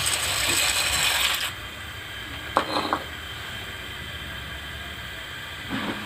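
Dry macaroni poured from a bowl into a wok of boiling water, with a hissing splash and rattle of pasta pieces for the first second and a half. There is a short clattering rattle near the middle and a steady low rumble underneath.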